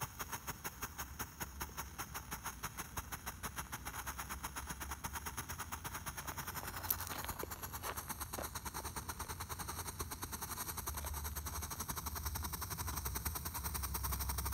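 Blue Fish firework fountain burning and spraying sparks with a fast, rhythmic pulsing sputter, about five pulses a second at first and closer together later. There is one sharper crack about seven seconds in.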